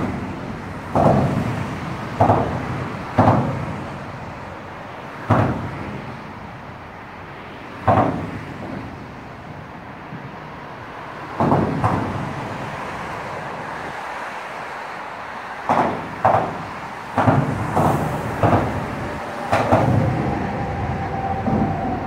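Cars driving over a bridge expansion joint, heard from under the deck: each crossing is a sharp thump, often two in quick succession as the front and rear wheels drop into the joint's gap, about a dozen in all over a steady traffic rumble. A steady whine comes in near the end.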